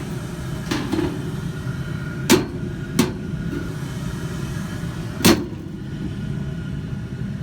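Furnace running steadily with its blower fan on, a low hum; it now stays on rather than cycling on and off, the loose W wire on its control board having been secured. A few sharp knocks sound over it, the loudest about two and five seconds in.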